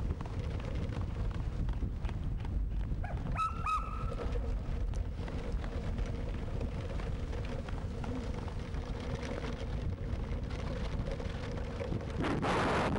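Wheeled dog-racing cart rolling fast over a dirt trail behind a running sled dog team: a steady rumble and rattle of the wheels with wind on the microphone. A brief high squeak about three and a half seconds in, and a louder rushing hiss near the end.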